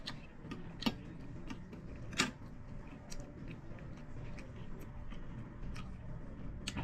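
Eating sounds: a fork and spoon clinking against a plate, then chewing, heard as a few scattered sharp clicks, the sharpest about two seconds in.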